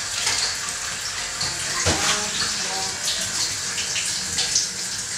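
Water running from a kitchen tap into the sink, with short clinks of dishes being handled. About two seconds in, a brief falling tone sweeps down.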